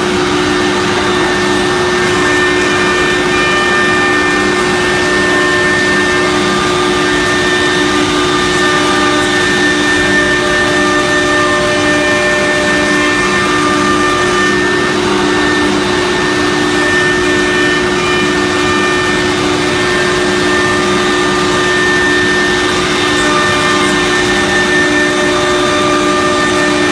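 CNC router with a 6 kW HSD spindle cutting grooves in a particleboard panel: a steady spindle whine of several held tones over the rushing noise of cutting and dust extraction.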